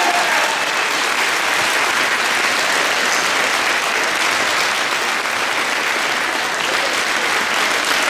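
Audience applauding steadily after a dog dancing routine ends; the last of the routine's music dies away in the first moment.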